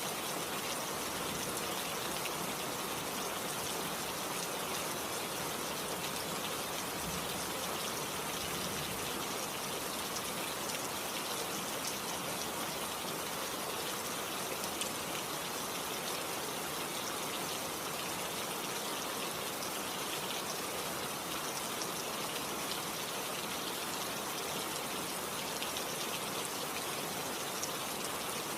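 Steady rain falling, a dense even patter of drops with a constant hiss.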